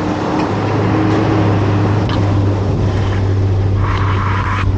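Nissan Patrol GR Y61 4x4 on the move: a steady engine drone with road noise, and a brief rushing hiss near the end.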